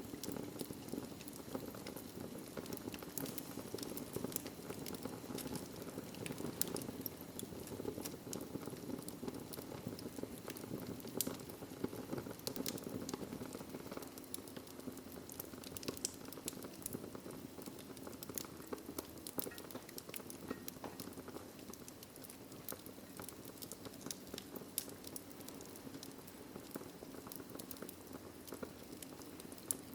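Fire crackling in a fireplace: a steady low rush of flame with frequent irregular small crackles and pops, a few sharper pops around the middle.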